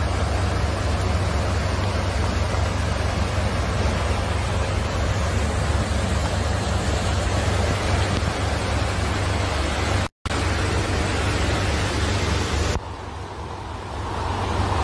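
Heavy rainstorm noise: a steady, loud rush with a deep rumble underneath. It cuts out for a moment about ten seconds in, then drops to a quieter hiss a couple of seconds before the end.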